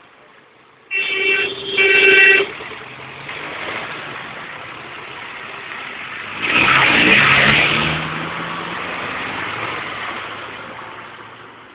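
Road traffic: a vehicle horn honks about a second in, held with a brief break, then a vehicle passes close by in the middle, its engine and road noise fading away toward the end.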